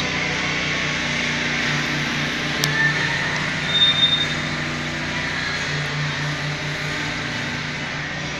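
City street traffic: a steady rush of cars, vans and a motorcycle with engines running, with a short high squeal about four seconds in.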